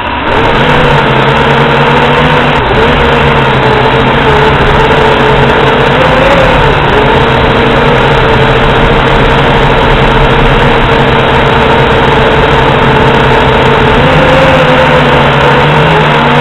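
JXD toy quadcopter's motors and propellers spinning up within the first half second, then a loud steady whine heard from the drone's own onboard camera. The pitch bends up and back down twice as the quadcopter manoeuvres.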